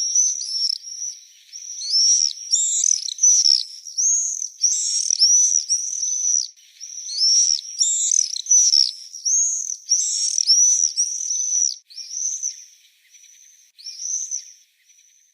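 High-pitched bird calls: a rapid run of short, arching chirps repeated over and over, thinning out and fading away near the end.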